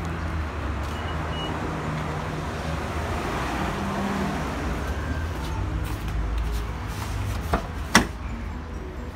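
Steady low traffic rumble. Near the end come two sharp clicks less than half a second apart as the front door latch of a 2002 Toyota Alphard is released and the door opened.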